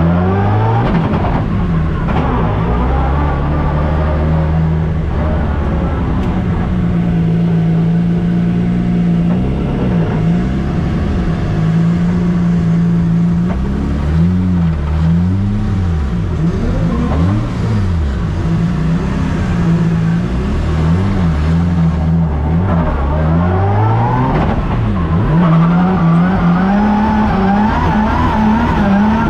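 Drift car engine held at high revs for stretches of a few seconds, then dropping and revving back up in quick repeated throttle blips, as during a drifting run.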